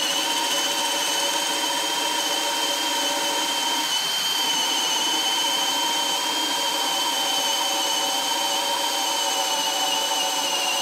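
Hilti 22V brushless hammer drill running on speed one, boring a 1.5-inch self-feed bit into a thick wooden post under heavy load. Steady high motor whine that sags slightly in pitch near the end.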